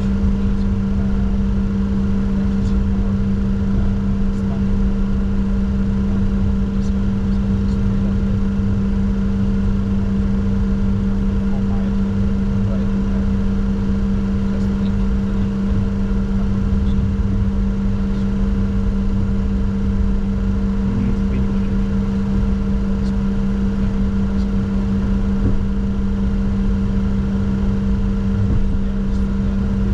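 Steady cockpit noise of a Bombardier Challenger 604 with its systems running: a constant two-tone electrical hum over a low rumble, with a few faint clicks.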